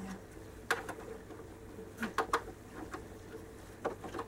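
Plastic clicks and taps from a Dymo handheld label maker being handled: one sharp click about a second in, a quick cluster of three around two seconds, and two more near the end.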